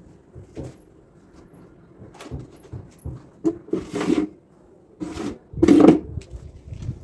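Handling noise from hanging washed clothes over a balcony railing: cloth rustling and flapping in two louder bursts about four and six seconds in, with light knocks and clicks in between.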